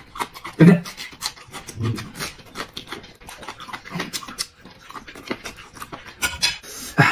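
Close-up eating sounds of a man chewing meat: rapid wet mouth clicks and lip smacks, with a few short louder mouth noises.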